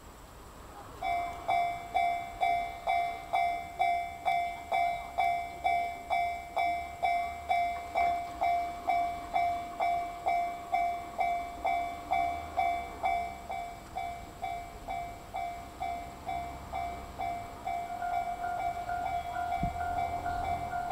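Japanese railway level-crossing warning bell starts ringing about a second in, a steady electronic 'kan-kan' at a little under two strokes a second, signalling that a train is approaching and the crossing is closing. Near the end a second, higher-pitched alarm tone joins in.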